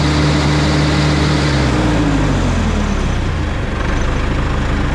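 John Deere 550 crawler dozer's diesel engine running loudly, its note dropping a little about two to three seconds in.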